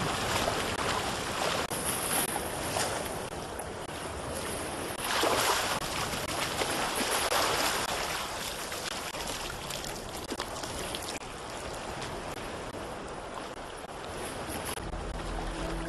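Seawater splashing and waves washing around rocks as a swimmer churns through the water, with louder surges of rushing water about five to eight seconds in. A low steady tone comes in near the end.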